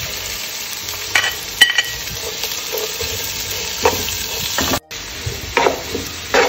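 Chopped onions sizzling in hot oil in a biryani pot, stirred with a spoon that clicks and scrapes against the pot a few times.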